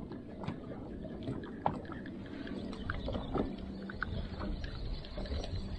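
Water lapping and splashing around a small boat at sea, with scattered short splashes. A steady low hum joins about two seconds in.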